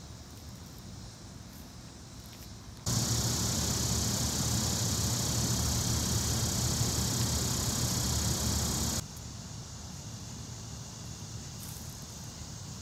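Outdoor background noise: a loud steady hiss with a low rumble beneath it cuts in abruptly about three seconds in and cuts off just as abruptly about six seconds later, with fainter steady outdoor background before and after.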